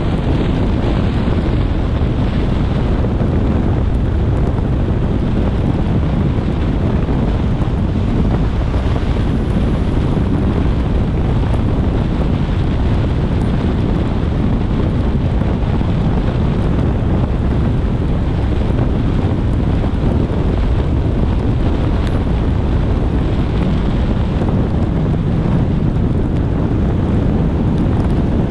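Steady road and wind noise of a car travelling at expressway speed on a rain-wet road, with wind rumbling on the microphone.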